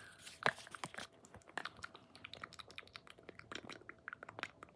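Irregular small clicks and crackles, many in quick uneven succession, close to the microphone.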